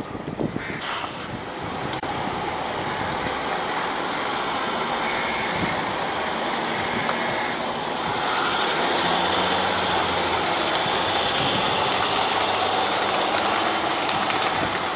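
Mercedes-Benz M-Class SUV's engine running steadily at low speed as the vehicle crawls over articulation ramps and up a steep ramp. It gets somewhat louder about halfway through, as the climb is filmed up close.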